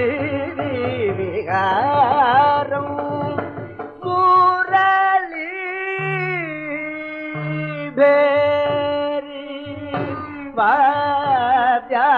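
Carnatic classical music in raga Vasanta from a 1961 45 rpm record: a male voice sings ornamented, gliding phrases, accompanied by violin and mridangam. It has a thin old-record sound with little treble.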